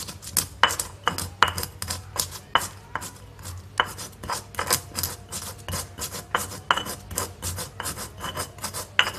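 Stone pestle (ulekan) grinding white peppercorns and candlenuts in a stone mortar (cobek): rapid, uneven strokes of stone scraping and knocking on stone.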